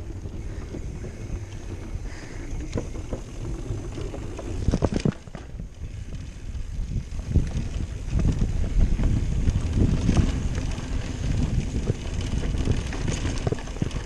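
Mountain bike rolling downhill: tyres rumbling over wooden bridge planks and then over a loose dirt trail, with the bike rattling and clicking and wind buffeting the microphone. The rumble gets louder and rougher about halfway through.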